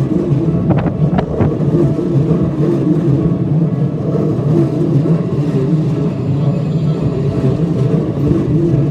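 A train running past slowly round a tight curve, a steady loud rumble of wheels and running gear, with a few brief high squeals about a second in.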